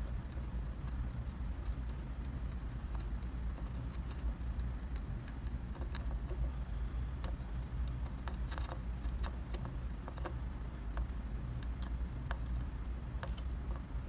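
Quiet hand-soldering of a rotary encoder's pins onto a circuit board: faint scattered ticks and clicks from the iron and solder work over a steady low background hum.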